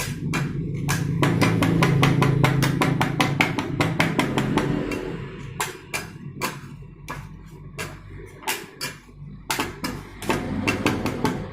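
Metal spatulas rapidly tapping and chopping on the cold plate of a rolled ice cream machine, about four to five knocks a second, then more sparsely after about five seconds, over a low steady hum.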